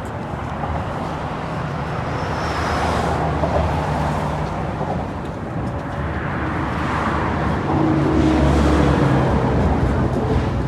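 Road traffic passing: tyre and engine noise swells and fades twice, once about three seconds in and again about eight seconds in.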